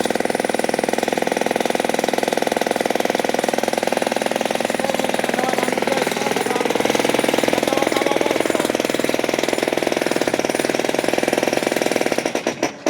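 Jackhammer hammering in a rapid, steady stream of blows. Near the end it falls to a few separate strokes and stops.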